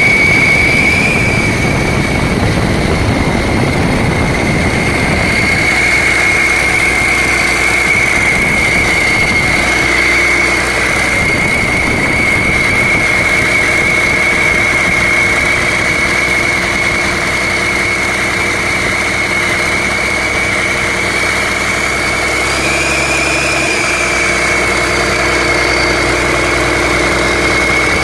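Komatsu PC300-7 excavator's 6CT six-cylinder turbo-diesel engine running, with a strong steady high-pitched whine over the engine note. The engine sounds rougher for the first five seconds or so, then settles into a steady idle.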